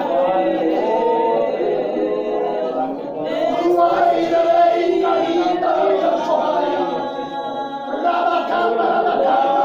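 Church congregation singing a hymn together, many voices with no clear instrument, the singing easing briefly between phrases about three seconds in and again near the end.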